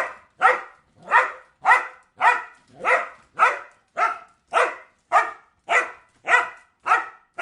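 A dog barking steadily and rhythmically, a bark a little more than every half second, about thirteen in a row, each one short and pitched.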